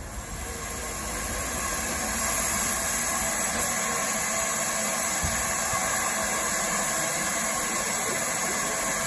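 Steady hiss of steam, as from a railway steam locomotive, fading in over about the first two seconds and then holding even.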